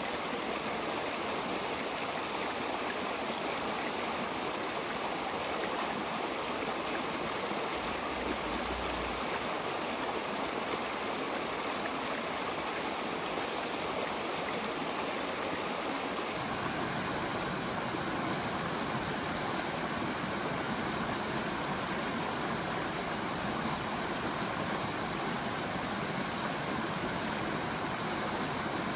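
Shallow creek running over rocks and cobbles: a steady rushing babble with no break. About halfway through it takes on a fuller, deeper rush.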